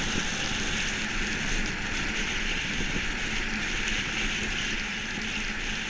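Monotype XV iceboat sliding over lake ice under sail: a steady hiss of the steel runners on the ice, mixed with wind buffeting the microphone.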